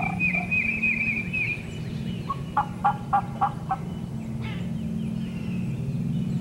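Turkey calling: a run of about six short, evenly spaced notes in just over a second, the loudest sound here, after a small bird's high, thin trill. A steady low hum lies underneath.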